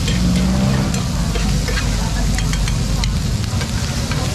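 Pork sisig sizzling on hot oval sizzling plates over gas burners, with a metal spoon scraping and clicking against the plate as the meat and egg are stirred and chopped.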